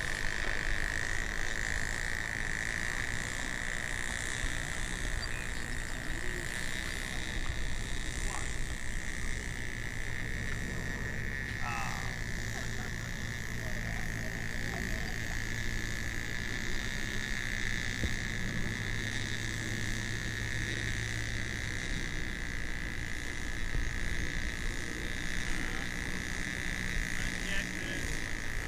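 Steady, unbroken high-pitched chirring of insects in a summer field.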